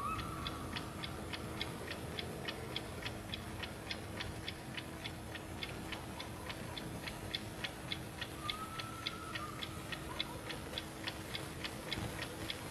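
Alarm clock ticking steadily, about three and a half ticks a second.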